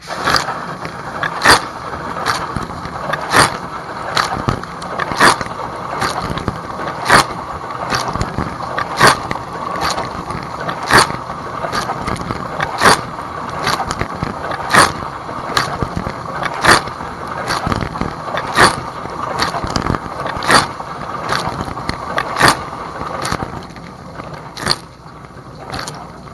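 Dishwasher wash cycle heard from inside the tub: water from the spray arms hissing and splashing, with a sharp knock about every two seconds as the rotating spray arm comes round. The spray eases off near the end.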